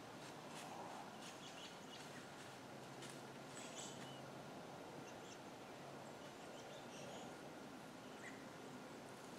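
Faint woodland quiet with a few short, high bird chirps scattered through it.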